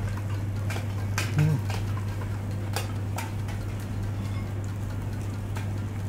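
A few scattered light clicks and taps of tableware, over a steady low hum.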